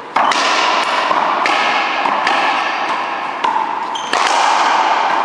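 One-wall racquetball rally: the rubber ball struck by racquets and hitting the wall, about five sharp hits roughly a second apart, each ringing on in a large echoing hall.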